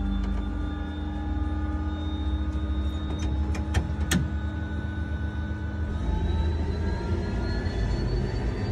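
Pratt & Whitney PT6A-41 turboprop being spun up by its starter, heard from inside the cockpit: a thin whine slowly rising in pitch as the gas generator speeds up, with a few sharp clicks near the middle. From about six seconds in a rougher rumble joins as fuel is introduced and the engine lights off.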